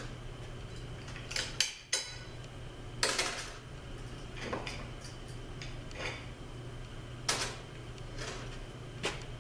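Steel automatic-transmission parts, the clutch drum and overdrive hub, clinking and knocking against each other and the bench as they are handled. About seven sharp metallic clinks, irregularly spaced, each with a brief ring.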